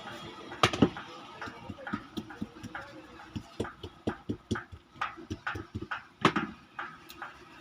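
Irregular knocks and clicks, a few a second, with two louder knocks about a second in and again near six seconds: a blender's parts being handled and tapped on the workbench as it is taken apart.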